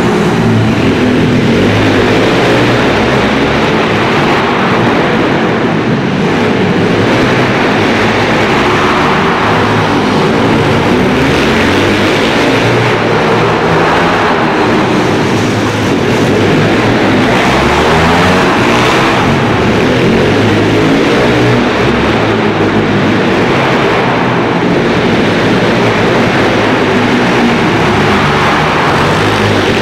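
Small single-cylinder pit bike engines revving up and easing off over and over, the pitch rising and falling every few seconds.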